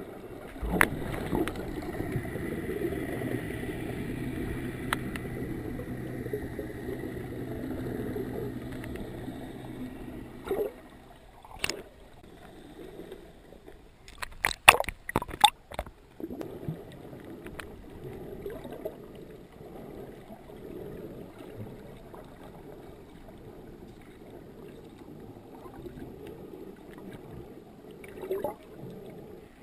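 Boat engine drone heard through the water, steady with a low hum and a faint whine, fading out about ten seconds in. About fourteen seconds in there is a burst of sharp splashes and knocks as the camera housing breaks the surface beside a boat. After that comes a quieter underwater wash.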